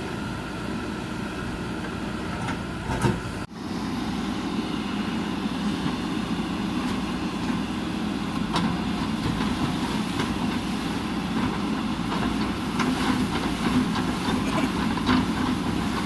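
JCB backhoe loader's diesel engine running steadily under work. A few light knocks from the backhoe bucket working against concrete and earth come later on, and there is a brief loud burst with a sharp dip about three seconds in.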